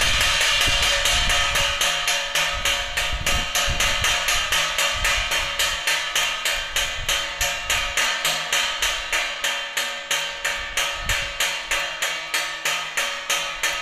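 Rapid, even knocking like a hammer striking metal, about three to four strikes a second, with a ringing tone beneath. The strikes come out of a steadier continuous sound in the first couple of seconds.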